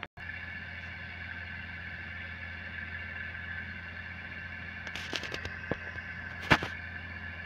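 Diesel engines of two Landini tractors, a Legend 165 and a Discovery 75, running steadily in the field. A few sharp clicks come about five seconds in and a louder knock just after six seconds.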